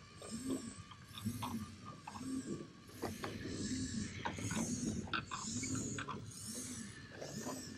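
Motorized LEGO flying-elephant ride turning: its motor and plastic gears whir in a rising-and-falling cycle about once a second, with scattered plastic clicks and ticks.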